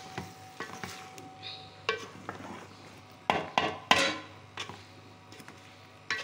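Wooden spoon stirring beans and potato pieces in a metal cooking pot, scraping and knocking against the pot's sides, with a cluster of louder knocks about three seconds in.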